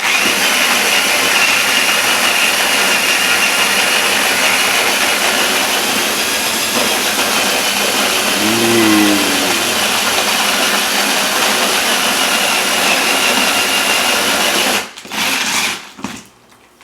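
Power drill turning an old hand-crank coffee grinder, grinding coffee beans: a steady high whir for about fifteen seconds that stops, followed by brief clatter.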